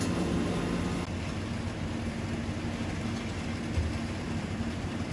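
Doosan Mynx 7500/50 vertical machining center running with its chip-trough augers turning: a steady mechanical hum with a low tone that shifts slightly higher about a second in. A single low knock comes near four seconds in.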